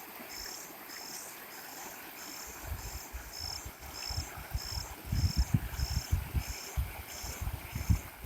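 An insect chirping in an even rhythm, about two high-pitched chirps a second, over a faint hiss. From about two and a half seconds in, irregular low thumps and rumbles come in, louder than the chirping.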